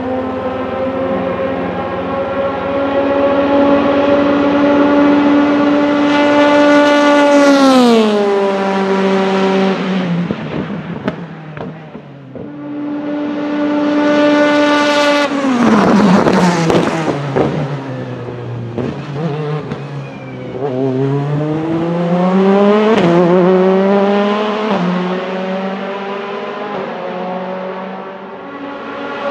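Oreca 03R LMP2 prototype's Nissan V8 at high revs under full throttle, its pitch gliding steeply down as the car goes by, twice. Later it accelerates hard through the gears, the pitch climbing and dropping at each quick upshift.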